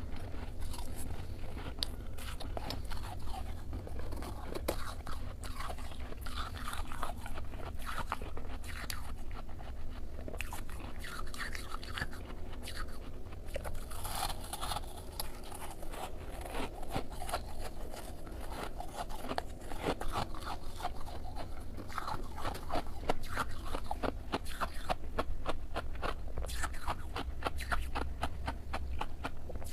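Freezer frost being bitten and chewed: a dense run of quick, crisp crunches over a steady low hum.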